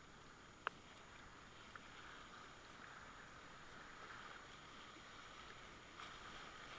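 Faint rush of river rapids and paddle-churned water around a whitewater kayak, slowly growing louder, with one sharp click about a second in and a couple of lighter ticks later.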